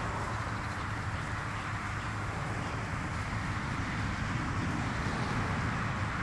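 Steady rushing outdoor background noise with a low hum, with faint soft hoof thuds from a small pony walking on grass.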